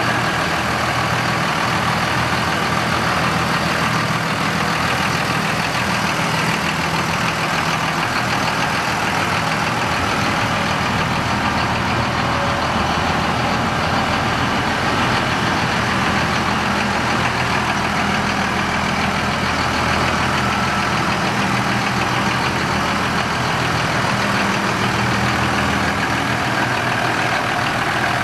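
A 2001 Dodge Ram 2500's Cummins 5.9-litre inline-six diesel engine idling steadily.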